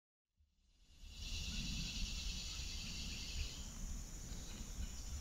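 Outdoor ambience fading in from silence: a steady, high-pitched chorus of insects that thins a little about three and a half seconds in, over a continuous low rumble.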